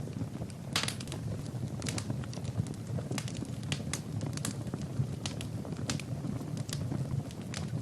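Fire burning in a fireplace: a steady low rumble of flames with scattered sharp crackles and pops, a slightly stronger pop about a second in.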